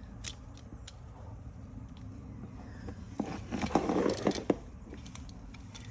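Parts of a seatbelt retractor being handled: a few small clicks, then a short burst of knocking and scraping about three seconds in.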